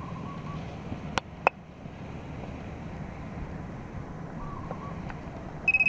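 Handheld TPMS scan tool (Autel MaxiTPMS TS401) reading a tyre pressure sensor: two sharp clicks about a second in, then near the end a loud, high, rapidly pulsing beep that signals the sensor's data has been received. A steady low wind rumble on the microphone runs underneath.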